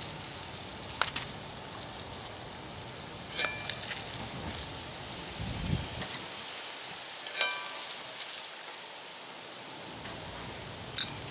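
Battered onion rings frying in a pot of hot oil, giving a steady sizzle, with a few sharp clicks and clinks scattered through it and a low thump about halfway.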